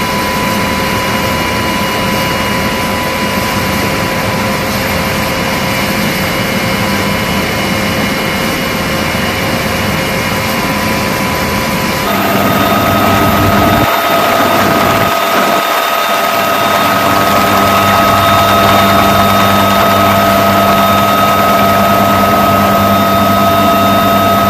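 Helicopter turbine engines and rotors running, heard from inside the cabin at the open door, with a steady high whine. About halfway through the whine jumps higher in pitch and the noise grows louder as power comes up for takeoff.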